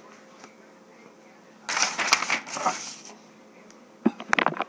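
Paper rustling for about a second, then a quick run of light taps and clicks near the end.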